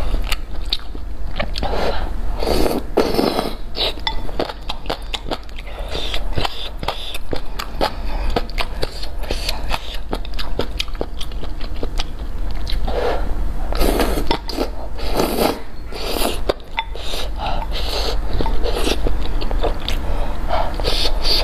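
Close-miked eating: soft, wide noodles slurped from spicy broth, with wet chewing and small mouth clicks in between; the longest slurps come about two seconds in and again around thirteen to sixteen seconds.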